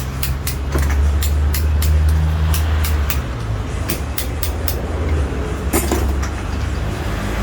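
Air compressor with a rewound motor running: a steady low hum with repeated sharp ticks, two or three a second. The hum is louder for a few seconds in the middle.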